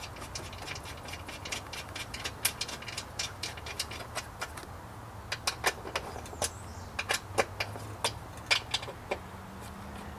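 Ratchet wrench clicking in short runs as the motorcycle's rear seat bolt is driven in and tightened.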